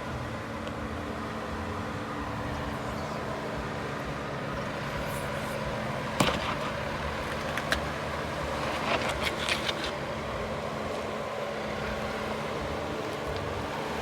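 Off-road 4x4 engine running steadily at low speed while crawling a trail, with a sharp knock about six seconds in and a few lighter knocks a couple of seconds later.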